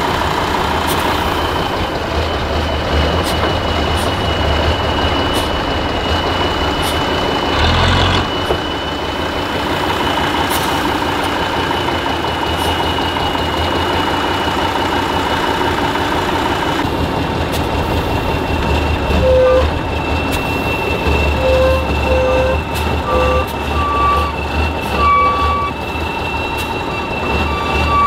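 Off-road trial truck's engine running hard, with a steady high-pitched whine over the rumble and a brief loud thump about eight seconds in. In the last third a series of short, irregular beeps sounds over the engine.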